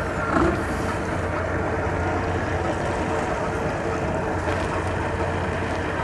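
Outboard boat engines idling, a steady low hum.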